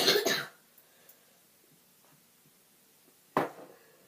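A person coughing twice: a ragged half-second cough at the start and a shorter, sharp one about three and a half seconds in.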